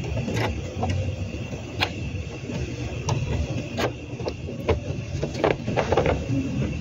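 Hard plastic clicks and knocks from the UPS's plastic case being handled and pressed back together, a handful of separate sharp strokes over a steady low rumble.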